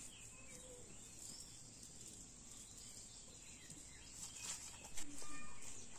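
Rural outdoor ambience: a steady high insect drone, typical of crickets, with a few faint clicks and a short faint call about five seconds in.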